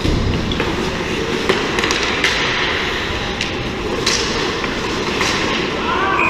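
Ice hockey play on an indoor rink: skate blades scraping the ice and sharp clacks of sticks and puck, over a steady rumbling hiss. A brief high tone starts just at the end.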